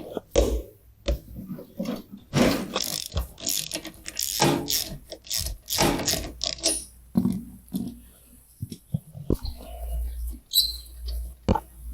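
Ratchet wrench clicking in bursts of short strokes, unscrewing spark plugs.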